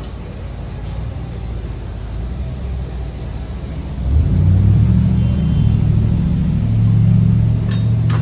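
A motor running with a steady low hum, growing clearly louder about four seconds in.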